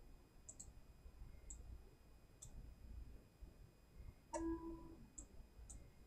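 Computer mouse clicking, a few single clicks and quick pairs spread out, faint. About four seconds in there is a short tone lasting about half a second.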